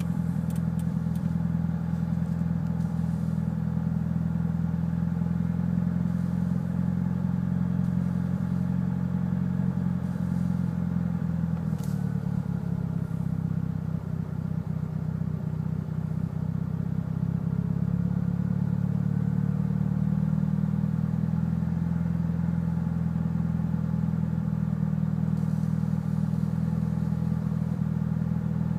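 Mitsubishi Lancer Evolution VIII turbocharged four-cylinder with aftermarket cams idling, with a rough idle whose cause the owner has not found. The idle note sags and wavers for a few seconds around the middle, then settles back.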